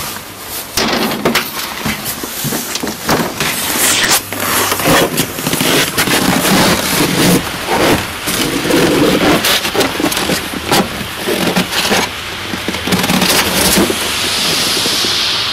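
Rustling, scraping and knocks from a pot being handled and carried, then, about fourteen seconds in, a smooth hissing whoosh as just-boiled water is flung into −41 °C air and flash-freezes into a cloud of ice fog.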